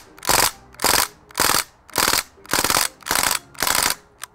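Crosman DPMS SBR CO2 BB rifle firing on full auto in short bursts: about eight quick rattling bursts, a little over half a second apart.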